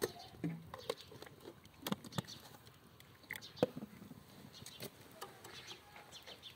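Wood fire crackling, with irregular sharp pops and clicks from the burning logs, the loudest a little past halfway.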